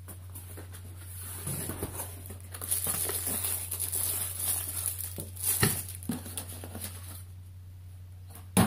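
Cardboard box and plastic wrapping being handled: the long box opened and plastic-wrapped bow parts slid out, with rustling and crinkling and a sharp knock about five and a half seconds in and another near the end.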